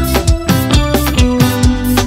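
Lambadão band music: an instrumental passage with guitar over a steady, even drum beat.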